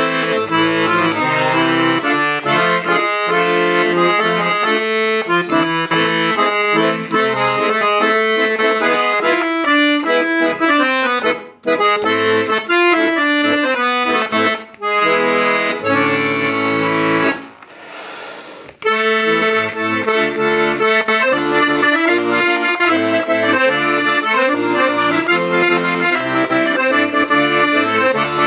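Hohner Concerto III piano accordion being played: a melody over chords, with a pulsing bass line. The music stops for about a second and a half two-thirds of the way through, leaving only a soft hiss, then starts again.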